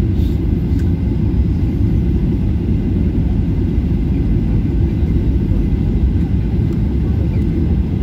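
Jet airliner cabin noise inside a Sunwing Boeing 737 on final approach: a steady, loud low rumble of engines and airflow.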